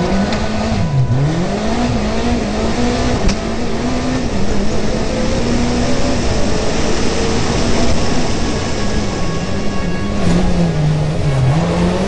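Rally car engine at speed, heard from inside the cockpit. The revs drop and climb again about a second in and again near the end, and hold high in between.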